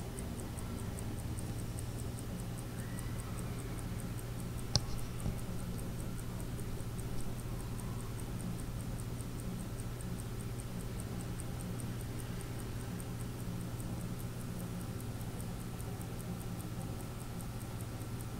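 Swiss R&S 15-jewel lever trench wristwatch ticking faintly with a rapid, even beat over a steady low hum. A single sharp click about five seconds in.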